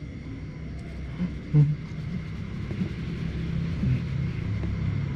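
A low steady rumble that slowly grows louder, with a short thump about one and a half seconds in.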